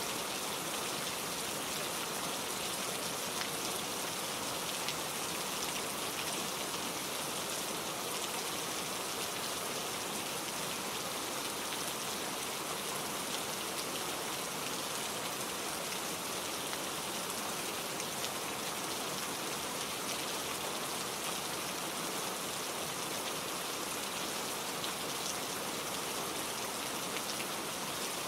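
Steady rain falling, a dense even patter of drops on surfaces.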